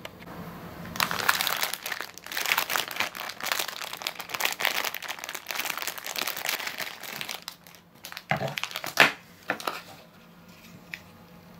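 Thin clear plastic bag crinkling steadily as a hard plastic candy-mould sprue is handled and drawn out of it, then a few sharp clicks near the end.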